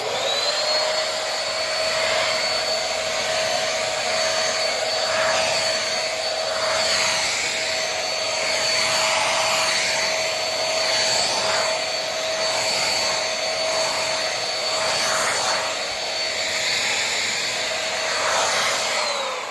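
Corded vacuum cleaner switched on and running steadily with a high motor whine while it vacuums baking soda off carpet. Near the end it is switched off and the whine falls away as the motor winds down.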